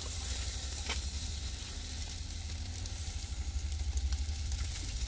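Eel fillets sizzling on a grill grate over charcoal as sauce is brushed onto them, over a steady low rumble. A brief tap about a second in.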